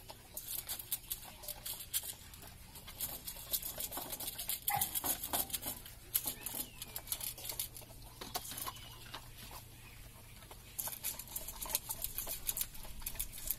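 Two dogs eating dry kibble from bowls, making a rapid, irregular run of crunching clicks that grows busier near the end.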